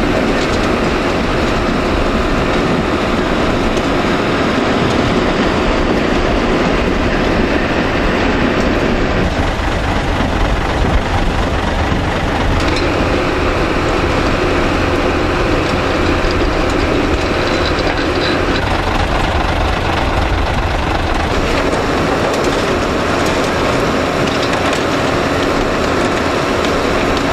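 Sugar beet cleaner-loader at work: its engine running with the steady rattle of the chain conveyor carrying beets up the boom and dropping them into a truck's tipper trailer.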